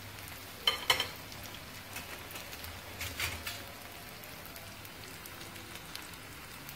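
Breadcrumb-coated pisang kepok banana fritters deep-frying in a pan of hot oil: a steady sizzle and crackle, with a few brief sharp clicks about a second in and again around three seconds.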